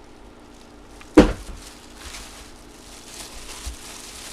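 A single sharp knock about a second in, the loudest sound, followed by faint handling and rustling noise.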